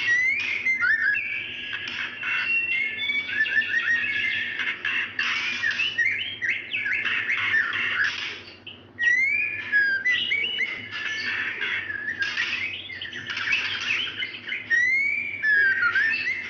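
Female white-rumped shama calling almost without pause: quick whistled notes that slide up and down, mixed with short chattering notes, with a brief break about halfway. These are the whining calls of a hen in breeding condition calling a male, used as a lure to get a male shama to sing.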